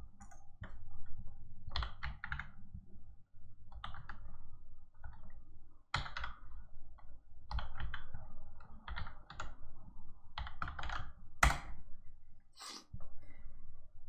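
Typing on a computer keyboard in irregular bursts of keystrokes, with a couple of louder single key strikes near the end.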